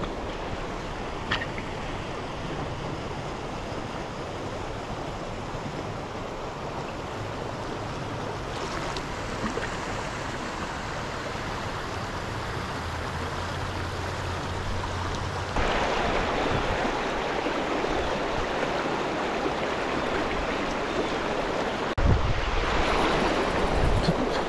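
Shallow, stony creek rushing steadily over rocks, with wind on the microphone. The rush grows louder a little past halfway, and low wind thuds come near the end.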